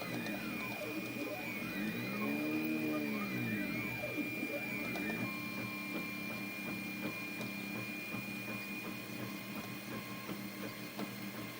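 Anet A8 3D printer's stepper motors whining mid-print, their pitch sweeping up and down in smooth arcs as the print head traces curved moves, over a steady high tone. After about five seconds the whine settles into a steadier tone with light ticks.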